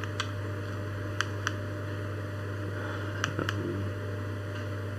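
Sharp clicks of remote-control buttons being pressed, about five, some in quick pairs, over a steady low hum.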